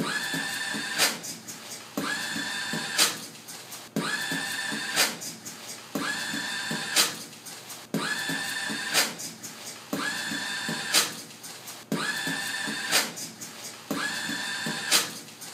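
Motion-sensor paper towel dispenser's motor whines briefly as it feeds out a towel, with a person beatboxing along: a sharp snare-like hit about a second after each whine and softer low beats between. The same two-second loop repeats about eight times.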